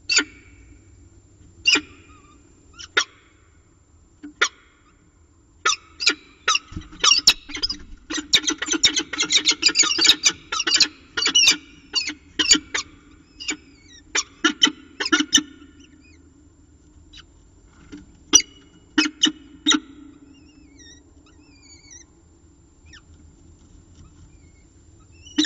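Peregrine falcons calling during a prey delivery at the nest: short, sharp, harsh calls, a few at first, then coming thick and fast for several seconds in the middle, then thinning out again.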